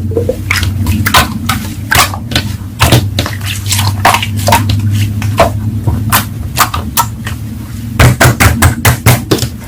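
Slime being squeezed and pressed by hand, making many sharp, irregular sticky clicks and pops, several a second, over a low steady hum.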